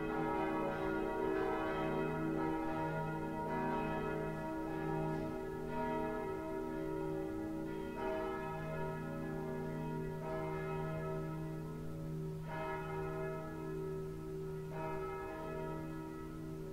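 Church bells ringing, a fresh stroke about every two seconds, each ringing on into the next so the tones overlap into a steady hum.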